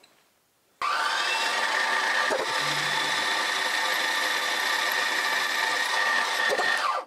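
Drilling machine running a twist drill through a metal eccentric sheave, boring an undersize 9 mm hole that will be opened out to 10 mm later. It starts abruptly about a second in and runs steadily, cutting noise over a constant high whine.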